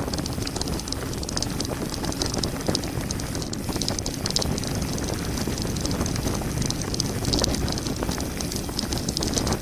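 Mountain bike descending a gravel forest road at speed: steady wind rush over the microphone with tyres crunching over gravel and the bike rattling.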